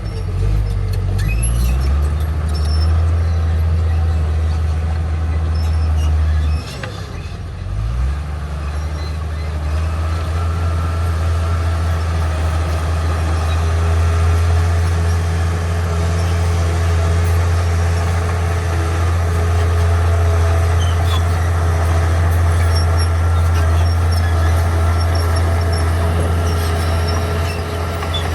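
Heavy diesel engine of earthmoving machinery running under load. It drops off briefly about seven seconds in, then picks up again, and a steady whine runs above it from about ten seconds on.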